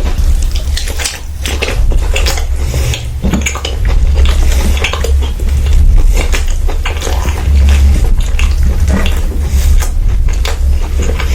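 Cutlery clinking and scraping against dishes in many quick, irregular clicks, the sound of food being scooped up to eat, over a steady low hum.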